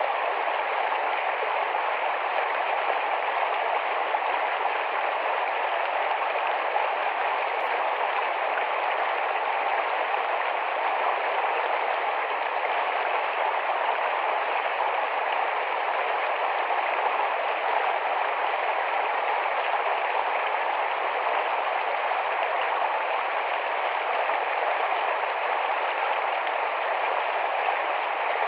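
Shallow, rapid forest stream running over rocks: a steady, unbroken rush of water.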